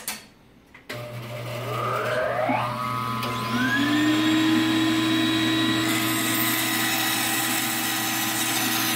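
Bandsaw switched on about a second in: a motor hum starts, and a whine rises in pitch over about two seconds as the blade comes up to speed. It then runs steadily with no cut yet under way.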